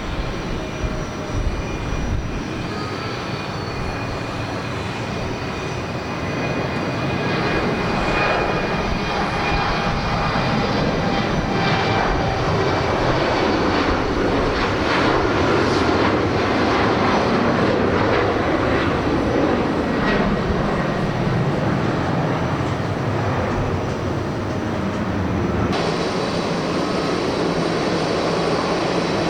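Jet airliner engines at takeoff thrust, growing louder to a peak past the middle, with faint high whining tones over the roar. In the first seconds, strong wind buffets the microphone. Near the end the sound changes abruptly to another stretch of engine noise.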